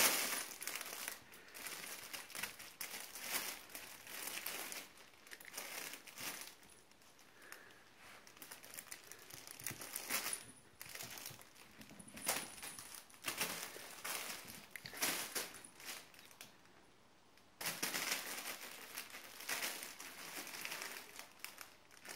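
A crinkly cat play tunnel rustling and crackling in irregular bursts as a kitten and a cat scramble in and around it.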